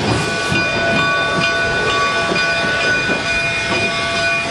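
Denver & Rio Grande Western K-36 narrow-gauge steam locomotive 487 moving slowly with its cylinder cocks open: a steady hiss of escaping steam, with a few thin, steady high tones running through it.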